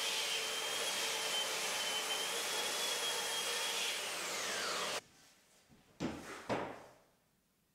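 Belt sander with a dust extraction hose running steadily with a high whine, sanding down the slightly thicker spliced-in timber on the edge of a pine door. About four seconds in its whine slides down in pitch as it winds down, then stops; a couple of short knocks follow near the end.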